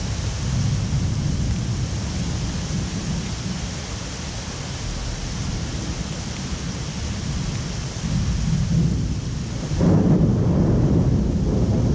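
Thunder rumbling over steady heavy rain, with a louder peal of thunder about ten seconds in.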